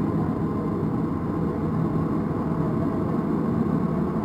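Alstom-built NS-16 metro train running at steady speed, a continuous rumble with a faint low hum and no change in pitch or level.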